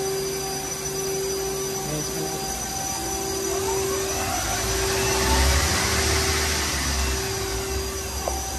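Nakamura-Tome WT100MMY CNC turning center running with a steady hum. About three seconds in, a spindle winds up with a rising whine, runs at speed with a whooshing rush and low rumble, then slows near the end.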